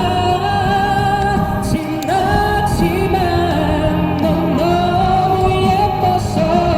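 A busker singing a song with instrumental accompaniment, the voice holding long notes and sliding between them.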